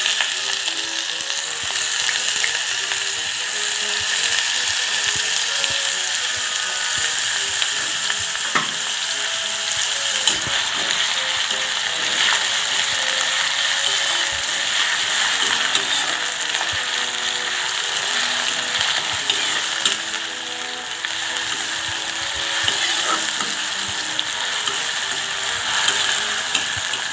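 Chopped onion sizzling in hot mustard oil in a kadhai, a loud, steady crackling hiss as it fries, with a few light clicks here and there.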